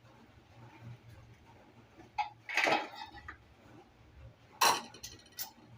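Kitchenware clinking and knocking against a mixing bowl: a sharp knock about two seconds in, a short scraping rattle just after, and two sharp clinks near the end.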